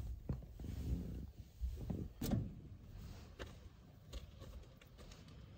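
Fleece blanket rustling as it is shaken out and spread over bedding, with a few soft bumps and knocks, the loudest about two seconds in.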